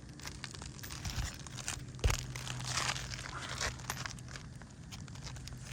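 Roofing work on asphalt shingles: irregular crinkling and scraping as the shingles are handled, with a single sharper knock about two seconds in and a low steady hum underneath.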